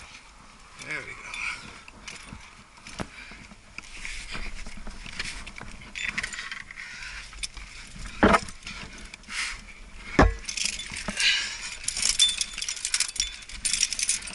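Metal climbing gear, carabiners and cams racked on a harness, clinking and jangling as the climber moves, thickest in the last few seconds, with two sharp knocks about eight and ten seconds in.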